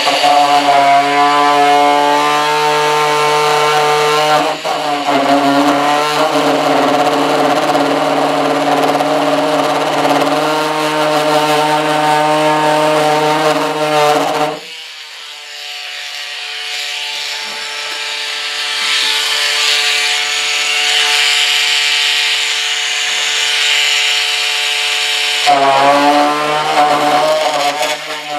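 A small handheld electric power tool, such as a rotary cutter, running steadily with a whine while cutting away the model jet's tail cone, with scraping cutting noise over the motor. About halfway through the lower motor note drops out, leaving a quieter, higher whine for about ten seconds; the full sound returns near the end.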